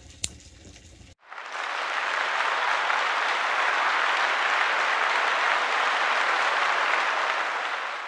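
Applause sound effect, an even clapping crowd, that starts abruptly about a second in and fades out near the end. Before it there is faint room noise with one small click.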